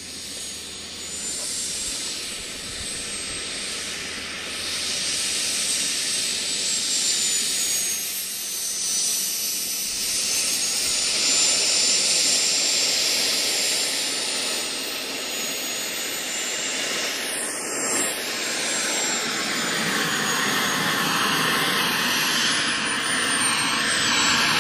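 Radio-controlled Hawker Hunter model jet taxiing, its engine running with a steady rushing hiss and a thin high whine that drifts slowly up and down in pitch. It grows louder near the end as the model comes close.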